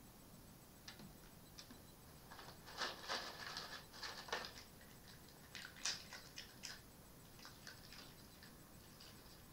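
Red fox eating from a bowl: a dense run of crisp crunching clicks a few seconds in, then scattered single clicks of chewing and the bowl being nudged.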